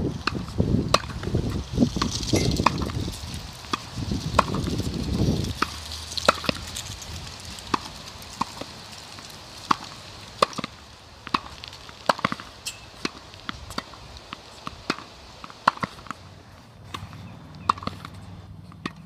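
Tennis balls struck by rackets and bouncing on the court: many sharp pops at irregular intervals. A low rumble runs under the first five seconds or so.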